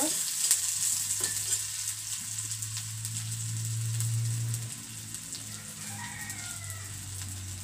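Chopped onion sizzling in hot refined oil in a kadai, frying toward golden-red. There are a few clicks of a metal spatula against the pan in the first second or so, and a low steady hum underneath from about two to five seconds in.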